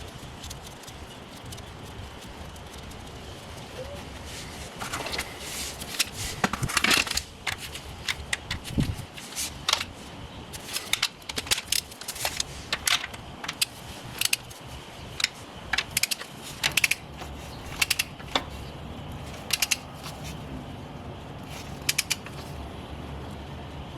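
Metal parts and hand tools clicking and clinking in irregular short bursts during hand work on an engine's bottom end with the sump off, over a faint low hum.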